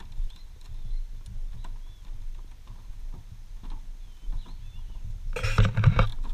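Footsteps knocking on the wooden planks of a suspension bridge, irregular hollow footfalls over a low rumble, with birds chirping faintly. About five seconds in, a loud rushing noise lasting about a second covers everything.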